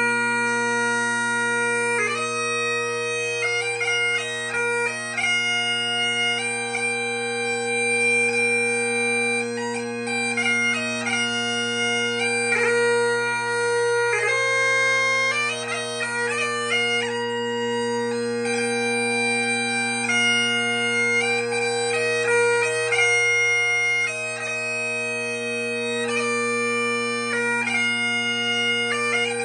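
3D-printed Highland bagpipes playing a tune: the steady drone holds underneath while the chanter melody moves from note to note, with quick short notes between the held ones.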